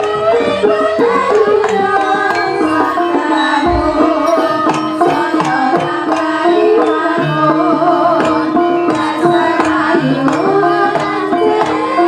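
Live jaranan dance accompaniment: hand drums beating a steady rhythm under melodic instruments playing held notes, with a deep low stroke just before four seconds in.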